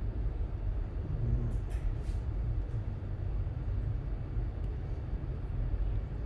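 Steady low background rumble, with a few faint clicks about one and a half to two seconds in.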